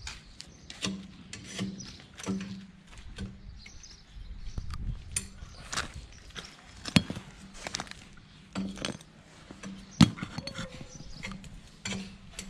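Worn steel excavator bucket teeth being handled on stony ground, clinking and knocking against each other and the stones, with two louder knocks about seven and ten seconds in.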